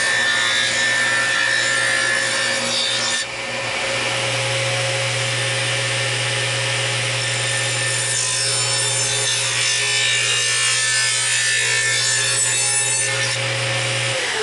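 Table saw ripping a thin strip of spalted maple, the motor running steadily while the blade cuts the wood. Near the end the saw is switched off and its pitch falls as the blade spins down.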